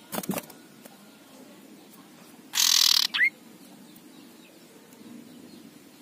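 Male common iora giving its harsh 'ngekrek' call: one loud harsh rasp about half a second long near the middle, ending in a short sharp rising-then-falling note. A brief wing flutter with a few light knocks right at the start.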